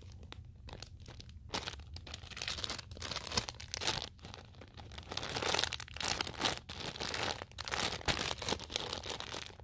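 Clear plastic bag crinkling irregularly as hands squeeze and work it.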